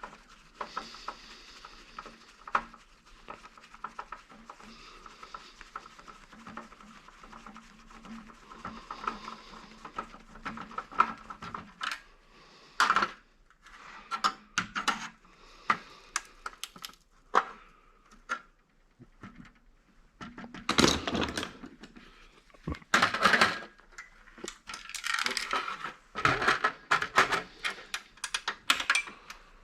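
Metal parts and tools clinking and clattering as scrap is worked apart by hand, with scattered sharp knocks. It starts sparse and light and grows busier and louder in the second half.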